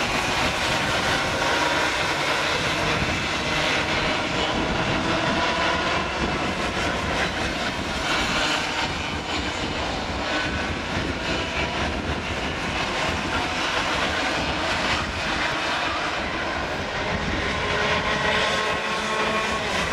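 A pack of junior racing karts with two-stroke Raket engines racing past, several engine notes rising and falling over one another.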